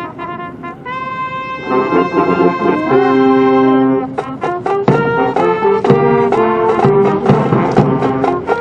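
Military brass band playing honours music for a salute: a single held trumpet note about a second in opens into a long held brass chord, then a brisk passage of short, accented chords.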